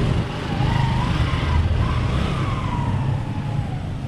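Road traffic rumbling, with an emergency-vehicle siren wailing over it, its pitch slowly rising and falling and fading out near the end.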